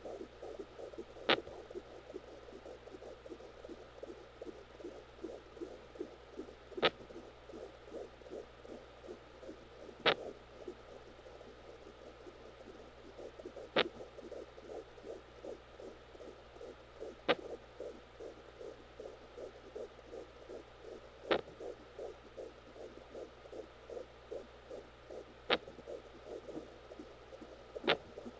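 Home fetal Doppler picking up a fast, pulsing fetal heartbeat from inside the womb, with a sharp little thump about every three to four seconds (eight in all): the fetus hiccuping.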